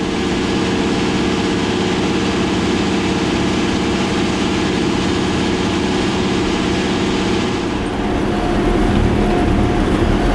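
Heavy farm machinery's large diesel engine running steadily, with a change in the sound's tone about eight seconds in.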